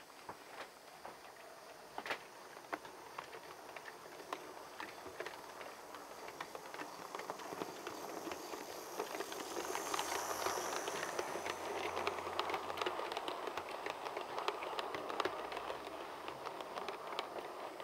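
Model railway train running on the track: wheels clicking over rail joints with the hum of the locomotive's motor, growing louder as it passes close, loudest about ten seconds in, then fading as it moves away.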